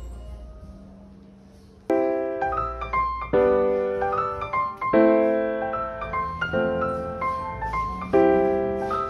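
Background piano music: after a quiet opening, chords come in sharply about two seconds in and strike every second or so, each ringing out.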